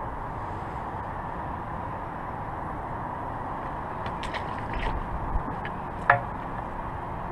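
Steady hiss of outdoor background noise. Over it come a few light clicks of fishing tackle being handled and one sharp knock about six seconds in, as a landing net is picked up.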